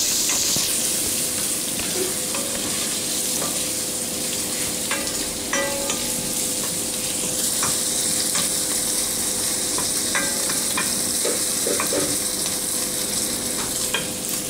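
Diced guanciale frying in a little olive oil in a stainless steel pan, with a steady sizzle while it is stirred with a wooden spoon, and scattered light knocks of the spoon against the pan.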